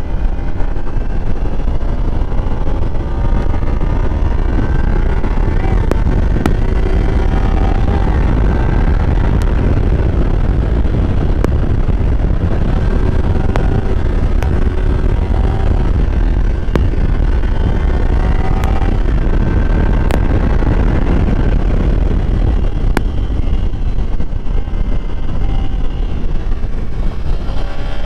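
Sport motorcycle riding along at road speed, its engine note drifting up and down as the throttle is rolled on and off, under heavy wind rumble on the microphone.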